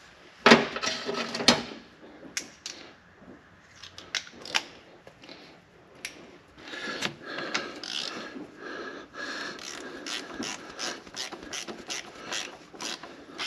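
Ratchet wrench clicking as bolts on an engine's aftercooler are run down and tightened, with a few louder metal clicks in the first couple of seconds and then a steady run of about three clicks a second from about halfway through.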